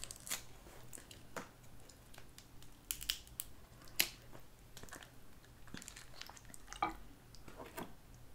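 Dungeness crab shell being cracked and snapped apart by hand, with scattered sharp cracks and crunches. The loudest come about four seconds in and just before seven seconds.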